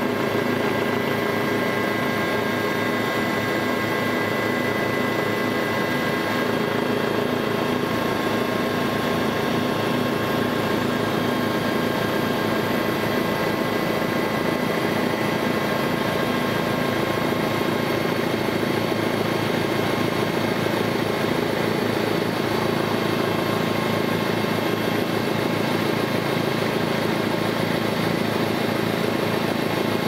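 Steady drone of an aircraft's engine heard from on board, with a few high whining tones held constant over it.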